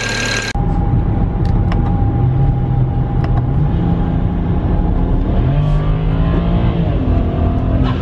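BMW N54 twin-turbo inline-six running under hard acceleration, heard from inside the cabin, its note rising as the revs climb, with a brief dip about five seconds in. It runs smoothly on new one-step-colder spark plugs, with no sign of the misfire.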